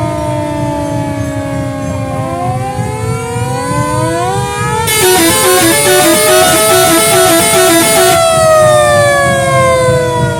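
Classic fire truck's sirens and telolet horn wailing, with several tones gliding slowly down and up. About five seconds in, a louder, rapid chopped warble plays for about three seconds, then the slow gliding wail returns.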